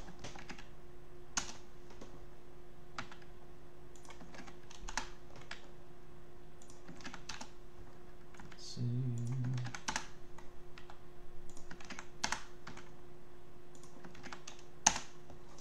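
Computer keyboard typing: sparse, irregular keystrokes, with one sharper key click near the end. A short low hum of a man's voice comes about nine seconds in, over a faint steady electrical hum.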